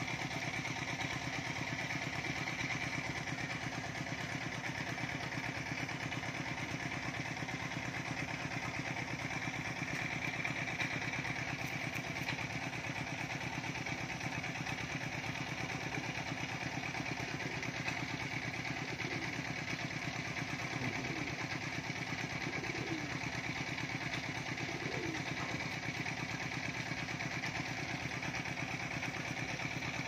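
A small engine or motor running steadily at a constant idle, with a fine rapid pulsing and no change in speed.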